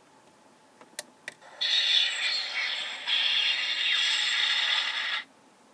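Two quick clicks of the Diamond Select Klingon Bird of Prey toy's sound button, then a harsh, grinding electronic sound effect from its small speaker, lasting about three and a half seconds in two parts and cutting off suddenly.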